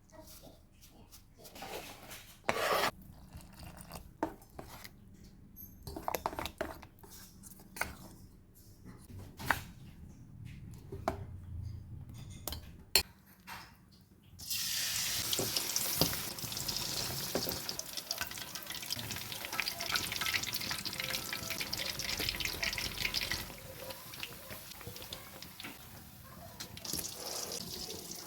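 Kitchen preparation sounds: scattered knocks and clinks of utensils and bowls, then a sudden steady hiss from about halfway through that grows quieter for the last few seconds.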